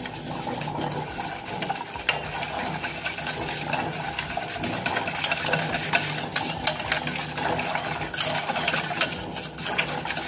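Small wire whisk beating milk powder and water in a steel bowl. It makes a steady run of fast clicks and scrapes as the wires strike the metal, mixing the powder in until no lumps remain.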